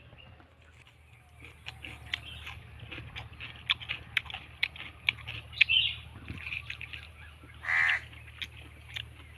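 A crow caws once, loudly, near the end, after a few seconds of sharp, rapid clicks and crackles.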